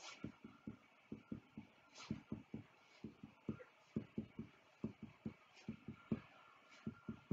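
Pencil making short, quick marks on paper: faint, irregular taps, several a second.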